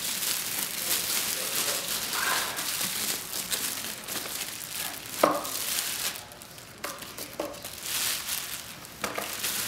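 Protective plastic wrap crinkling and rustling as it is pulled off a hoverboard, with a sharper crackle about five seconds in.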